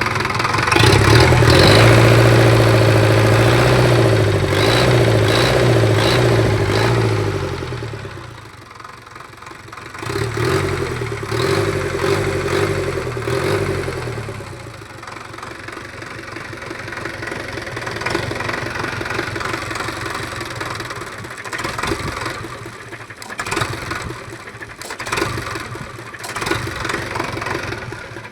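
Sonalika 750 tractor's diesel engine running, loud and steady for about the first eight seconds, falling away, picking up again for a few seconds, then running quieter and more unevenly with scattered clicks and knocks.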